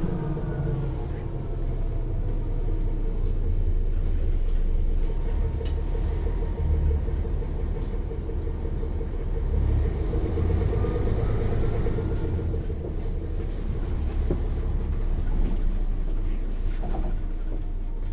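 Inside a Mercedes-Benz O 405 N1 city bus under way: the diesel engine rumbles steadily and the rear axle's final drive whines above it. The whine falls in pitch at the start as the bus slows, then rises again from about ten seconds in as it picks up speed.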